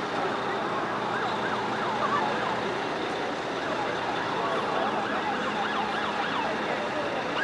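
Emergency-vehicle sirens sounding a rapid yelp, rising and falling several times a second, over a steady haze of street noise.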